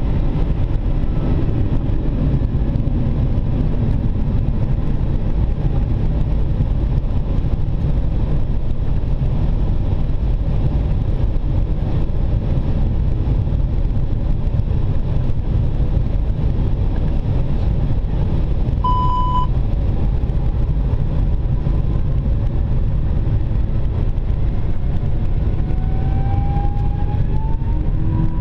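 Steady loud rumble of airflow and engine noise inside the Airbus A380 cockpit in flight. A single short beep sounds about 19 seconds in, and a rising whine builds near the end.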